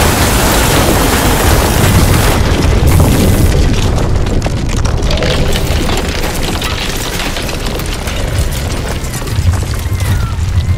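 Simulated earthquake sound effects: a deep, continuous rumble with crashing and crumbling masonry as buildings collapse. The crashing thins out after a few seconds, leaving the rumble, and a few bird cries come in near the end.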